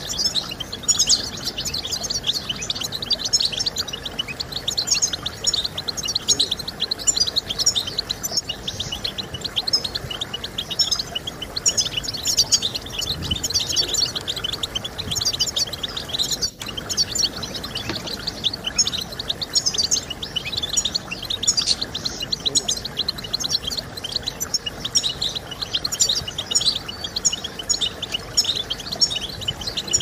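European goldfinch song: a continuous stream of rapid, high twittering chirps and trills, broken by a momentary cut about sixteen seconds in.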